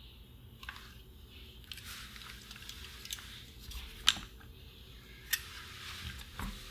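Hands handling a small transistor radio circuit board. Faint rustling and scraping are broken by a few sharp taps and clicks, the loudest about four seconds in and another about a second later, as the board is turned over and laid down on a silicone work mat.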